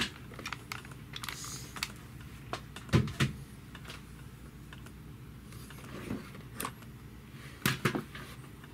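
Scattered clicks and knocks of hard plastic being handled: a drill and a 3D-printed shredder housing bumped and set in place, with a sharp double knock about three seconds in and another pair near the end. No motor runs.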